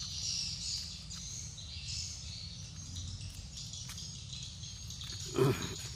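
Pondside ambience: a steady, high chirring of insects mixed with bird chirps. A brief, louder, lower sound cuts in about five and a half seconds in.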